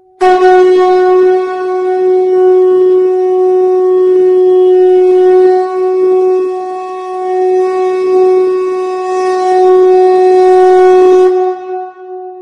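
A horn-like wind instrument blown in one long, steady, loud note. It starts abruptly, holds its pitch for about eleven seconds with slight swells, and stops about a second before the end, leaving a short fading tail.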